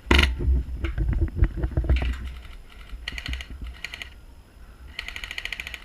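Airsoft guns firing in short rapid full-auto bursts of about twenty shots a second, with a scatter of sharp knocks and clicks in the first couple of seconds.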